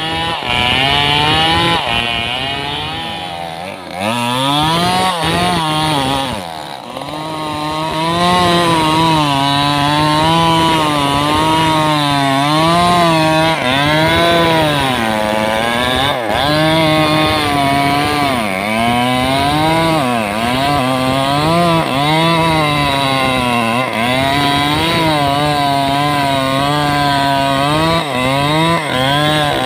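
Stihl MS 381 two-stroke chainsaw cutting through a thick teak trunk at full throttle. The engine pitch keeps wavering up and down as the chain loads in the wood, with a few deeper drops in revs.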